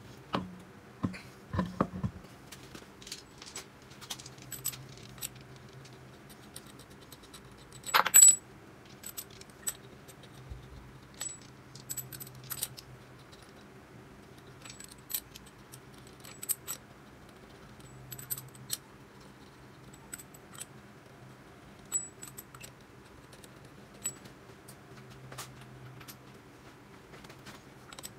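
Scattered small metal clinks and ticks as lug nuts are threaded onto the wheel studs by hand, with one louder metallic knock about eight seconds in.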